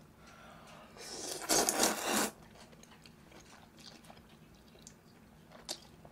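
A mouthful of glass noodles from braised chicken slurped in, one loud hissing slurp that swells over about a second, then quiet chewing with a few soft clicks and a sharper one near the end.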